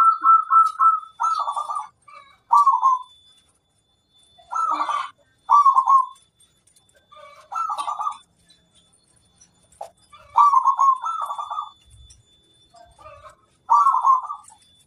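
Zebra doves (perkutut) cooing: a quick run of notes at the start, then short cooing phrases repeated every second or two with pauses between.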